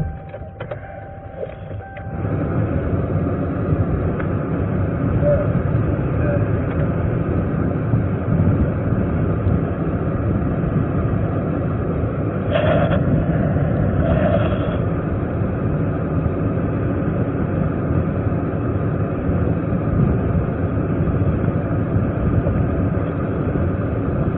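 Steady engine and road noise heard from inside a moving police car's cabin. It grows louder about two seconds in.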